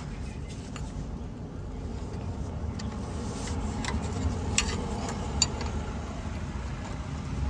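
Steady low rumble of vehicle traffic or an engine running nearby, with a few light, sharp clicks about halfway through, like tools touching metal.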